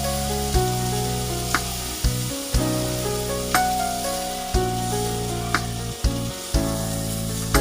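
Background music with a steady beat about once a second, over food sizzling in a pan.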